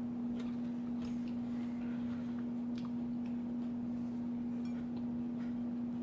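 A steady low hum with a few faint scattered clicks from eating a salad, such as a fork on the dish and crunching bites.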